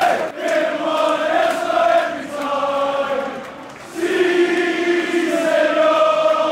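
Football crowd in the stands singing a chant together, many voices holding long sung notes, dipping briefly just before four seconds in and then coming back louder.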